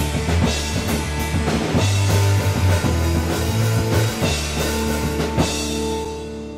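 Rock band music with a drum kit and bass. The drumming stops about five and a half seconds in, leaving a held chord ringing out and fading.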